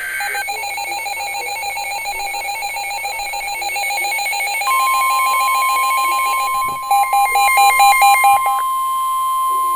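NOAA Weather Radio alert audio. A short digital data burst ends, then a rapid electronic beeping runs for a few seconds. About five seconds in, the steady 1050 Hz warning alarm tone starts and holds, with the rapid beeping sounding over it again briefly about seven to eight and a half seconds in.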